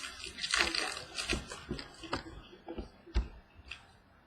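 Trading cards being handled by hand: a papery rustle of cards sliding over one another, then a string of light taps and clicks as cards are moved and set down, growing fainter toward the end.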